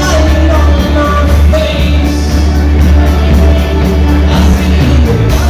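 Live rock band playing guitars, bass and drums, with a steady beat and a heavy bass line.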